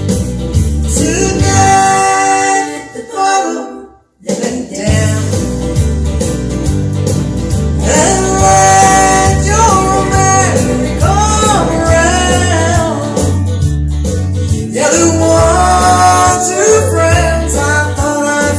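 Woman singing a country song into a microphone over strummed acoustic guitar. The sound cuts out almost completely for a moment about four seconds in, then the song carries on.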